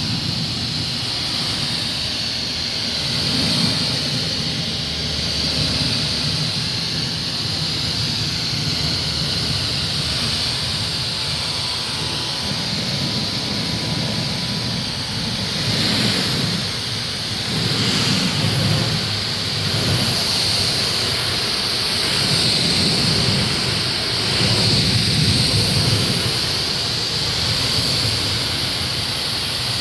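Pressure washer spraying water onto black walnut boards: a steady hiss with a low rumble underneath that swells and fades every few seconds.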